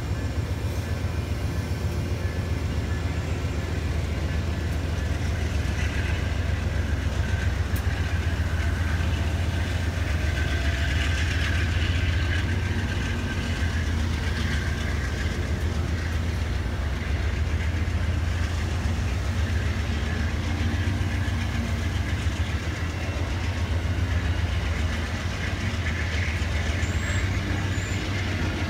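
Amtrak passenger train's stainless-steel Amfleet coaches rolling past close by as the train departs, a steady low rumble of wheels on rail.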